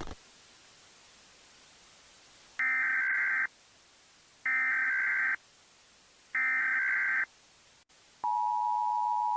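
Emergency Alert System SAME header: three bursts of screechy data tones, each just under a second long and about a second apart. After a short gap, the steady two-tone EAS attention signal starts near the end.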